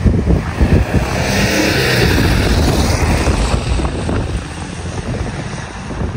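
A rally car driving past; its engine and tyre noise swell to a peak about two seconds in and then ease off.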